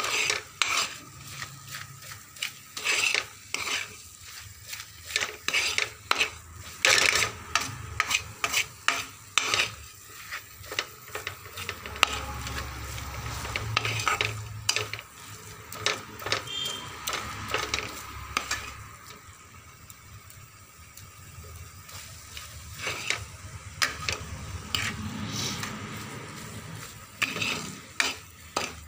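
A metal spoon scraping and knocking around a metal frying pan in irregular strokes, stirring a thick moong dal and fresh cream barfi mixture, over a low sizzle of the mixture frying in its own released fat. The stirring stops for a few seconds past the middle, leaving only the sizzle.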